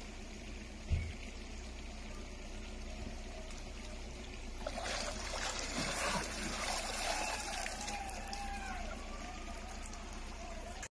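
Shallow stream trickling over stones, with a short thump about a second in. About five seconds in, loud splashing starts as a person rises in the water and splashes it with his hands, lasting about four seconds.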